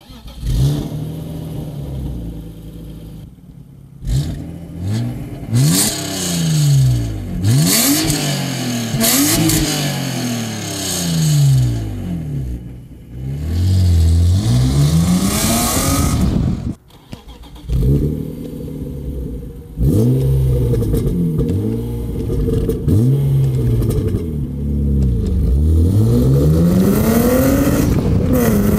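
BMW E36 coupe's exhaust as the engine is blipped repeatedly, the pitch rising and falling with each rev. For the first part it breathes through the stock muffler. After a cut about 17 seconds in, it runs through a Reuter EB 5202 aftermarket muffler.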